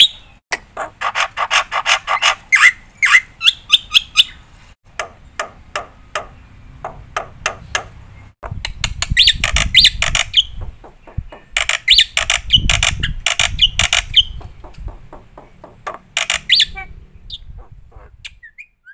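Black-winged myna (jalak putih) singing in a fast, varied stream of rapid chattering note runs and harsh squawks, in bursts with short pauses, with a low rumble under the middle part. The song stops shortly before the end.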